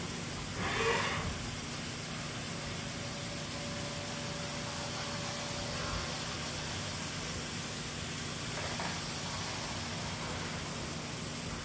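Flood coolant spraying and hissing onto the work inside a Haas VF4 CNC mill while a 1-inch-8 spiral point tap cuts, over the machine's steady hum. A brief louder burst comes about a second in.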